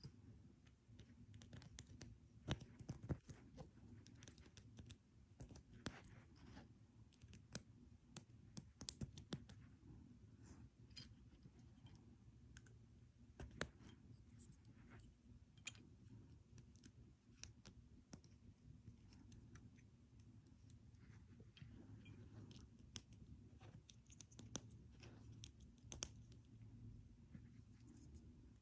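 LEGO Technic plastic parts clicking as pins are pushed into beams and pieces are handled: irregular small sharp clicks over a low steady room hum.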